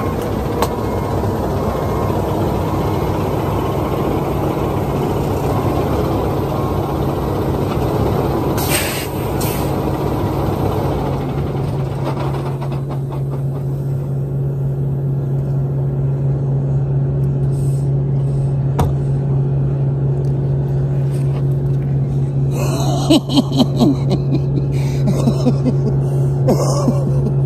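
Semi-truck diesel engine idling steadily close by, with a short air-brake hiss about nine seconds in and a few brief louder noises near the end.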